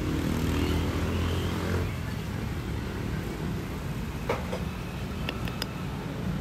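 A motor vehicle's engine running nearby with a steady low hum for the first couple of seconds, then fading away. Later come a few light clicks of a metal spoon against a plastic tub and a ceramic dipping dish as fish paste is scooped and served.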